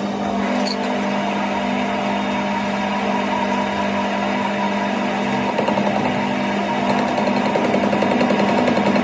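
Metal lathe's motor and drive running with a steady hum. A rapid fluttering rhythm joins about halfway through.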